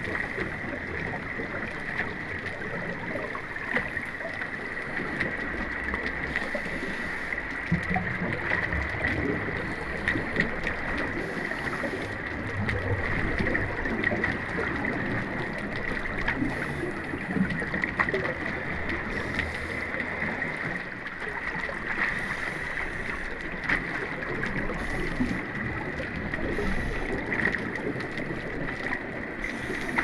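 Steady underwater bubbling and gurgling water, with many small pops.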